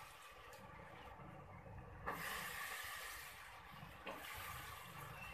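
Wet chopped vegetables (potato, cauliflower, capsicum, peas) landing in hot spiced oil in a pressure cooker, sizzling, with fresh hissing surges about two seconds in and again about four seconds in as more goes in.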